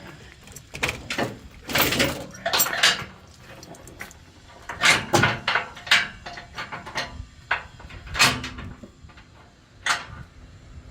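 Steel tie-down chain clanking and rattling in irregular clusters as it is handled and hooked while securing a skid steer.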